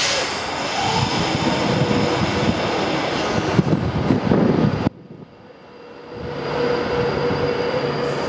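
Class 390 Pendolino electric train pulling away from the platform, with a steady mid-pitched whine from the train that starts to rise near the end. A rough low rumbling under it stops abruptly about five seconds in.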